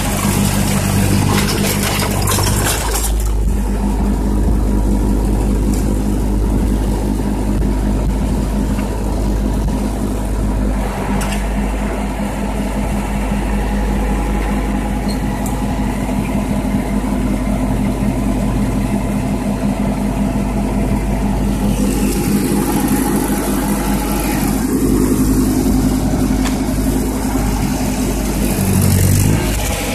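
1952 Ford tractor's four-cylinder engine running steadily at low speed as the tractor drives along pulling a tined rake over gravel. The engine note shifts a little about three seconds in and again later, and the engine speed dips briefly near the end.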